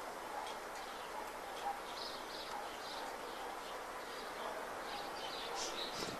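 Steady outdoor background noise with scattered faint, short, high bird chirps.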